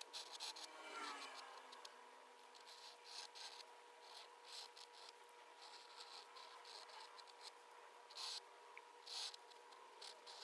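Faint scratching of a flex pen nib on paper as ink lines are drawn, in short strokes of under a second each, over a faint steady hum.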